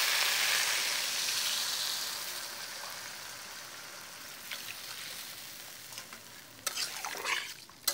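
Water poured into a hot wok of fried potatoes and spice paste hisses and sizzles, the sizzle dying away over several seconds. Near the end, a few sharp scrapes and knocks of a metal spatula against the wok.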